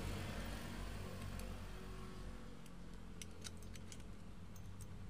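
Faint small clicks and ticks of a metal bar-end mirror clamp and an Allen key being handled and turned, scattered mostly through the second half, over a low steady background hum.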